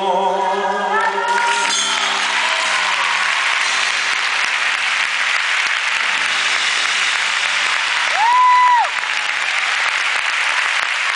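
Concert audience applauding and cheering as a solo song ends, the singer's last sung note fading in the first second or so while the band's closing chord holds underneath. About eight seconds in, a single loud high call rises out of the crowd, held steady for under a second.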